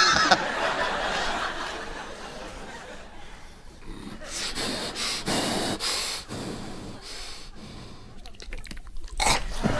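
Mouth-made sound effects into a microphone: breathy, hissing whooshes and snorts in a couple of stretches, then a quick run of clicks near the end.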